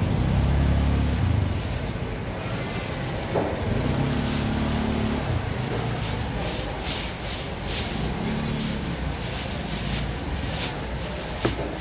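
Low hum of passing motor engines, swelling and fading three times over steady outdoor background noise.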